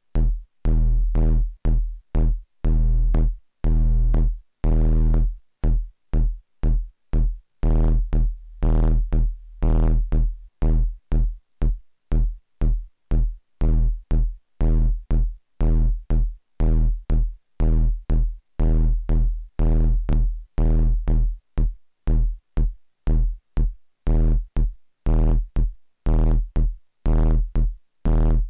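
Eurorack modular synthesizer playing a sequenced pattern of short gated bass notes, about two to three a second, with some notes held longer. The tone brightens and darkens as knobs on the modules are turned.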